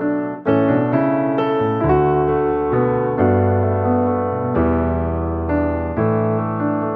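Background piano music: sustained chords changing about once a second over a low bass line.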